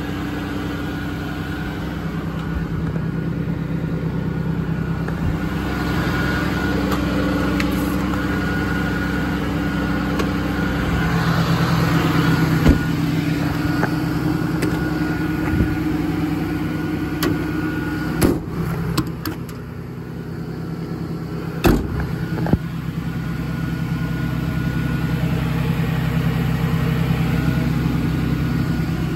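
6.7-litre Cummins turbo-diesel in a Ram 5500 idling steadily, with a few sharp knocks and clicks in the middle.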